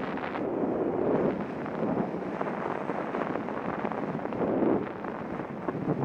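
Wind buffeting the microphone of a camera mounted on a moving bicycle, an uneven rushing noise that swells and eases.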